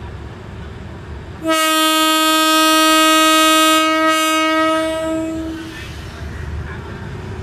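Horn of an SRT Hitachi diesel-electric locomotive sounding one long, steady blast of about four seconds, starting about a second and a half in, as a departure signal. A low rumble continues underneath.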